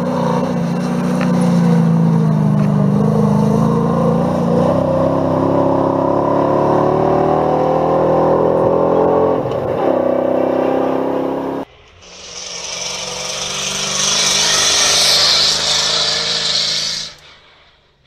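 Rally truck engine pulling hard on a gravel stage, its pitch rising steadily as it accelerates. Then a cut, and a loud rushing hiss of tyres and thrown gravel from another rally vehicle, with its engine faint underneath, cutting off abruptly near the end.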